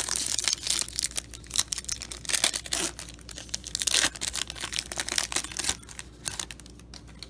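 Crackly foil wrapper of a Topps Chrome baseball card pack being torn open and crinkled by hand, dying down about a second before the end.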